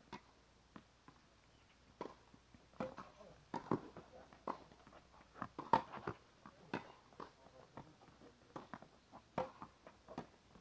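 Tennis rally on a hard court: sharp, irregular pops of the ball off the rackets and the court surface, mixed with players' footsteps. The knocks are densest and loudest in the middle, thinning out near the end.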